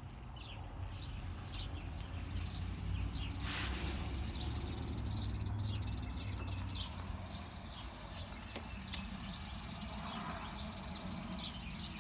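Small birds chirping repeatedly in the background over a low rumble, with a brief rustle about three and a half seconds in and a single sharp click near nine seconds.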